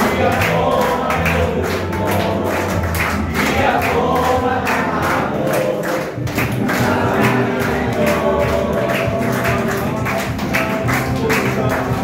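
A large group of men singing a Tagalog worship song together and clapping along in time, over accompaniment from a loudspeaker.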